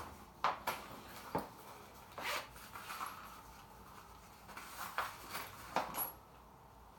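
Irregular clicks, scrapes and rustles of tools and small parts being handled, as a 5/16 drill bit is picked out for the bearing screws.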